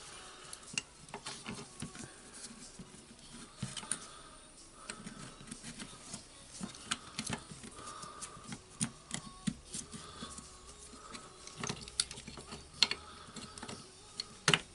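Scattered light clicks and taps of small wire connectors and plastic parts being handled, as motor wires are pushed back onto the terminals of a replacement cordless-drill trigger switch.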